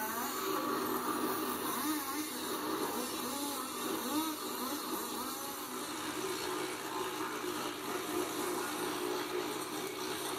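Indistinct voice-like sounds rising and falling over a steady background hiss, mostly in the first half.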